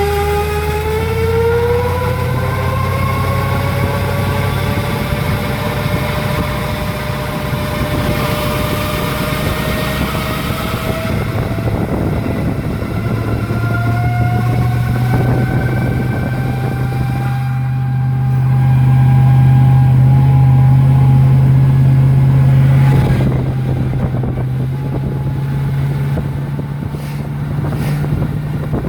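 2001 Chevrolet Silverado's failing transmission making a loud whine under way: a whine that rises slowly in pitch and then holds, over a low drone that swells louder for a few seconds past the middle.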